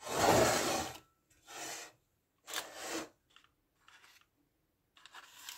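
A small blade slicing through bread dough and scraping the baking paper beneath as the loaf is scored: three short strokes, the first the loudest.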